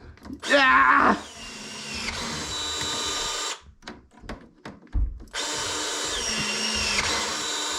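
Power drill running in two runs of about two seconds each, with a few clicks between them; in each run its whine drops in pitch as the bit loads up.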